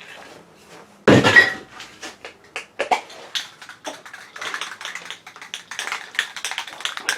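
A knock about a second in, then a fast, irregular metallic clicking rattle: a spray paint can being handled and shaken, its mixing ball rattling inside.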